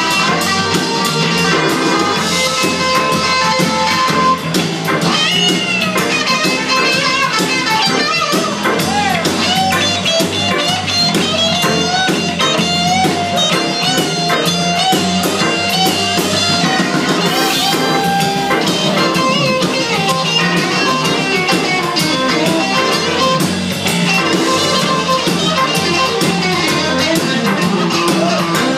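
Live band playing: an electric guitar leads with bent and wavering notes over electric bass, drums and keyboard, at a steady high level.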